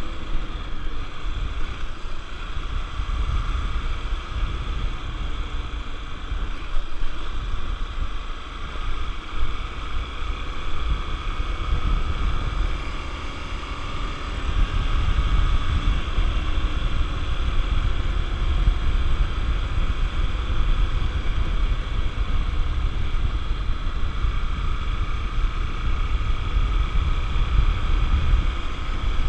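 Honda XR 250 Tornado's single-cylinder engine running steadily while the motorcycle is ridden, with wind rumbling on the microphone. The sound gets a little louder about halfway through.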